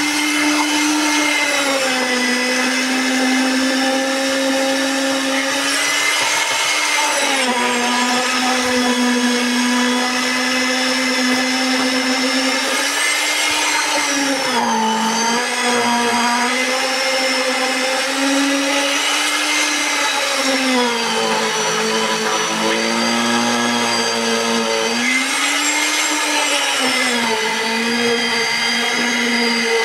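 Concrete poker vibrator running steadily with a high motor whine, its needle working in freshly poured wet concrete to compact the slab. The pitch sags and recovers several times.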